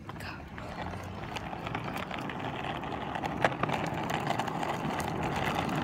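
Skateboard wheels rolling on pavement: a steady rumble that grows slowly louder, with a few sharp clicks.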